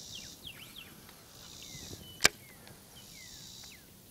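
Rod and reel working a topwater rat lure: three soft swishes and one sharp click about two seconds in. Faint short falling chirps sound throughout.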